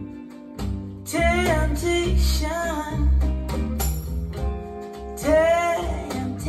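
A pop song playing back through a pair of Celef LS8 bookshelf speakers: a woman sings two phrases, about a second in and again near the end, over bass and guitar.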